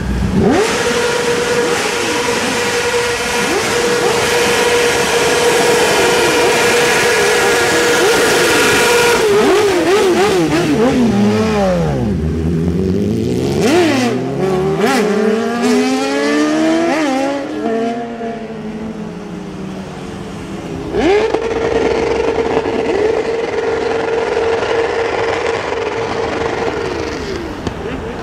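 BMW S1000RR sport bike's inline-four engine held on the rev limiter at one steady high pitch for several seconds. The revs then drop and climb again in a run of blips and gear changes. Near the end it sits on the limiter again for several seconds.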